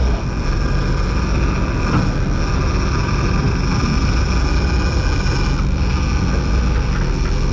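Sportfishing boat's engines running steadily underway, a low drone over the rush of the churning wake.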